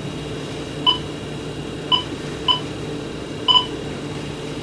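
Short electronic key beeps from a VHF marine radio as its buttons are pressed to change to channel 9. There are four beeps at uneven spacing over the steady low hum of the boat's engines.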